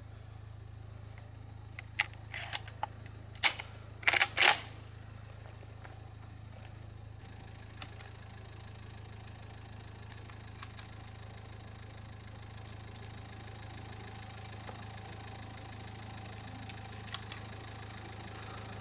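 Shotgun shells being pushed into the loading port of a Huğlu Veyron semi-automatic shotgun: a few light metal clicks about two seconds in, then louder metal clacks around four seconds in as the action is worked. A vehicle engine idles steadily underneath.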